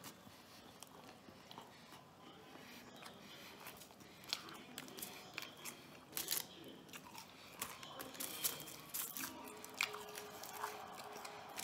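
A man chewing and biting into a Burger King French fry sandwich, a sesame bun filled with fries, close to the microphone. Sharp little mouth clicks come sparsely at first, then grow louder and more frequent from about four seconds in.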